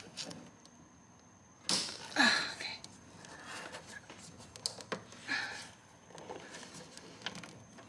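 Handling noise from a plastic fuel line and its quick-connect fitting being pushed and routed under the car: scattered rustles and a few sharp clicks, with two short breathy bursts about two seconds in.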